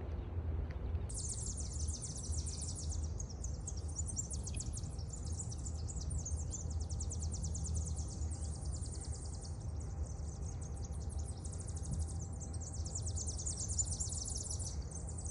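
Outdoor ambience: a steady low rumble with a high, rapidly pulsing chirring that starts about a second in and carries on throughout.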